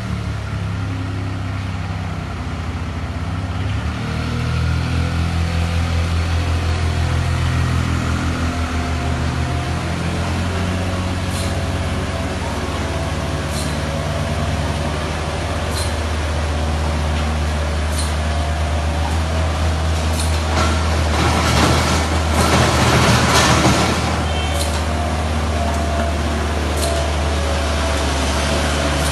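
Demtec potting machine and buffertable conveyor line running with a steady low machine hum. Sharp clicks about every two seconds through the second half, and a louder hissing rush for about three seconds about three-quarters of the way through.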